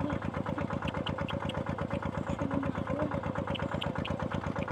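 Engine of a water pump running steadily with a fast, even beat.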